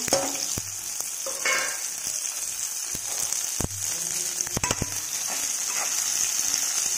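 Cut okra frying in hot oil with mustard seeds and green chillies, sizzling steadily. A spatula stirs in the pan, with a few sharp clicks and knocks.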